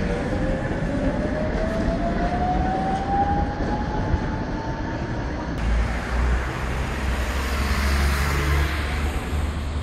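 Electric tram pulling away, its traction motors giving a whine that rises steadily in pitch as it gathers speed, over a low street rumble. About halfway through, the sound changes abruptly to a broad rushing street and traffic noise that swells and fades.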